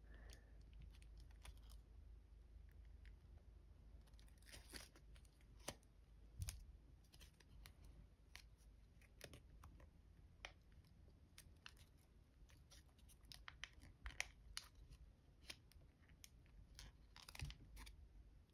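Faint, scattered crinkles and clicks of foil paper being pinched and folded by fingers, a few a little louder than the rest.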